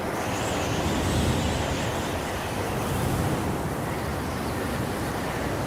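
Strong gusty wind buffeting the microphone: a steady rush with a heavy low rumble.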